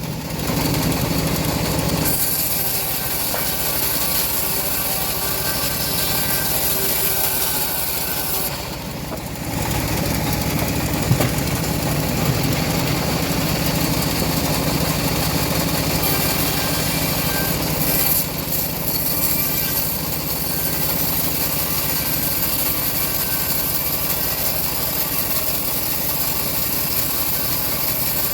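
Home-built bandsaw mill running steadily as its blade saws through a teak log, with a brief drop in level about nine seconds in.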